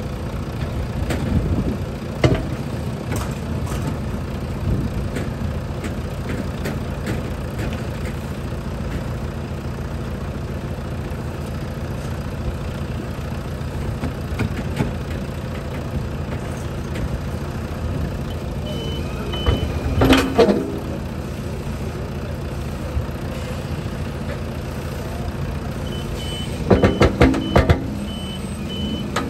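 Hooklift truck's diesel engine running steadily, with an intermittent reversing-type beep sounding briefly about two-thirds of the way in and again, about two beeps a second, over the last few seconds. Sharp knocks come in two short clusters, just after the first beeps and again near the end; these are the loudest sounds.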